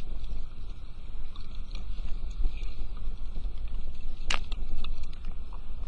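Steady low rumble of wind and water around a small fishing boat on the drift, with scattered light clicks and one sharp click about four seconds in.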